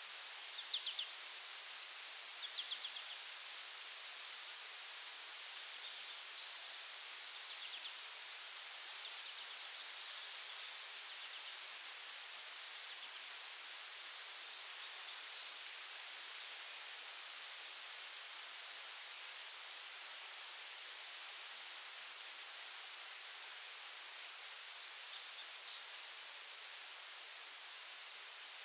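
A forest insect chorus: one insect holds a steady, very high drone while a cricket chirps in even, rapid pulses. A few brief high trills come in the first few seconds and now and then after.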